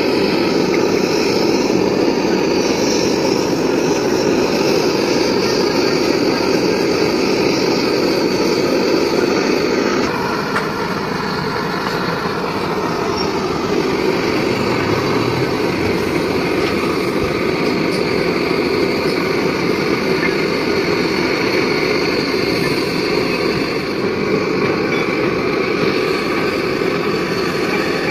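Gas blowtorch flame burning with a steady rushing noise while a radiator tank seam is soldered. The noise drops a little about ten seconds in.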